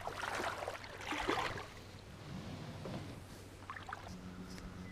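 Water sloshing and scuffing as a folding solar panel is handled in a small canoe. About four seconds in, a steady low electric hum starts, typical of a small DC trolling motor running.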